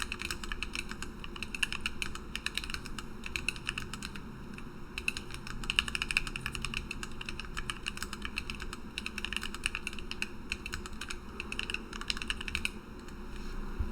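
Typing on a Lily58 split mechanical keyboard with lubed and filmed Gateron Black Ink V2 linear switches, an acrylic plate and PBT OEM-profile keycaps: a fast, steady stream of keystrokes, pausing briefly near the end.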